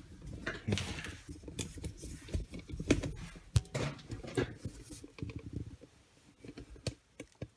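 Irregular clicks, taps and knocks of hands working on engine parts and tools, with some rustling, dying away near the end.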